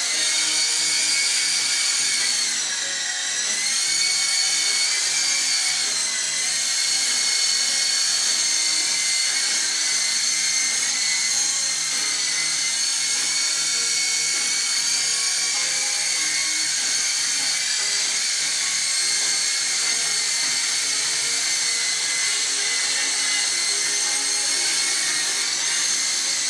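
SYMA S032 radio-controlled helicopter's electric motors and rotors whining steadily in flight, a high-pitched whine whose pitch dips briefly about three seconds in and again around six seconds, as the throttle eases and comes back.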